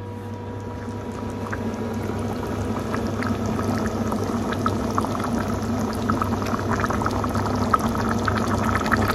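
Chicken and tomato sauce for paella bubbling in a shallow paella pan, a dense crackle of small pops that grows steadily louder as the sauce, with white wine just added, comes back to a simmer. A steady low hum runs underneath.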